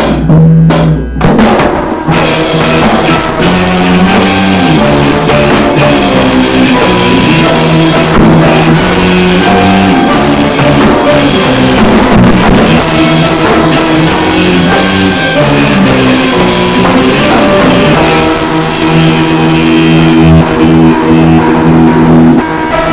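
Rock music played loudly on drum kit and guitars, with a steady beat and held chords.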